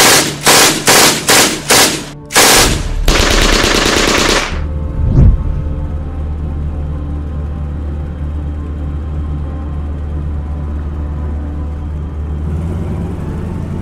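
Automatic gunfire: five short bursts in quick succession, then a longer rapid burst of machine-gun fire. It gives way, about five seconds in, to a brief whoosh and then a low steady engine drone, typical of dubbed-in aircraft engines.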